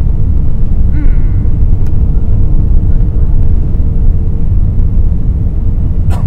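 Cabin noise of an Airbus A380 on its takeoff roll: a loud, steady low rumble from its four Rolls-Royce Trent 900 engines at takeoff thrust and the wheels rolling on the runway. A faint steady hum sits above it and fades about halfway through.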